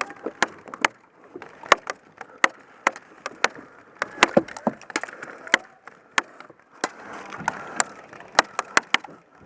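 Airsoft fire: irregular sharp cracks, a few a second, of BBs striking wooden cover and guns shooting, with the player pinned down by incoming fire.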